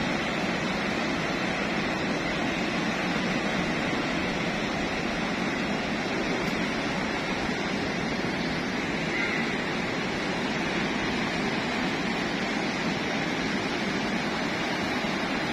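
Steady wash of surf breaking on the beach, an even hiss of sea noise with no single waves standing out.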